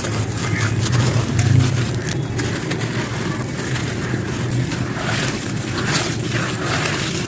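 Dry sand-cement chunks crumbling and crushing, giving crisp gritty crackles over a steady low rumble.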